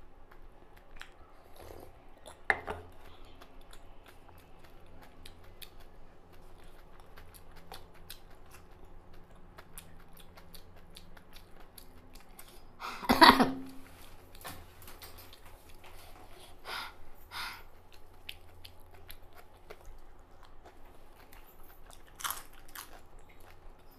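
Eating sounds from a spicy panipuri mukbang: quiet chewing and mouth noises, a sharp knock a couple of seconds in, and a loud burst of about a second halfway through. Near the end a crisp puri crunches as a whole one is bitten.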